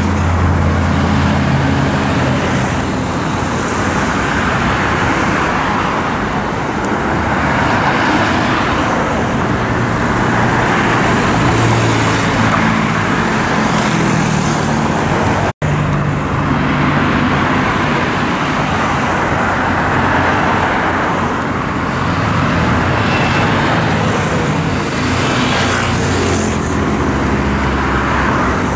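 Busy highway traffic: motorcycles, cars and trucks passing close by. Their engines and tyre noise rise and fall as each vehicle goes past, and the sound cuts out for an instant about halfway through.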